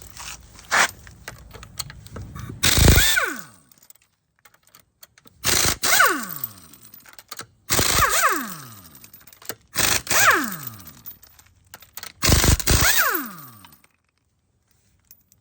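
Cordless impact wrench hammering five times in short bursts, each burst followed by the motor spinning down with a falling whine, as the lug nuts of a car wheel are loosened. A few light clicks come first.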